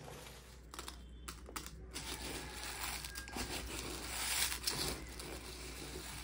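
Dry rice grains rustling and crackling as a hand digs and stirs through them in a plastic storage container, loudest a little past the middle.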